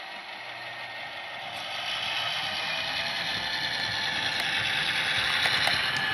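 Model railway diesel locomotive hauling passenger coaches, running past on the track with a steady mechanical rolling and motor noise. The noise grows louder about two seconds in as the train comes close.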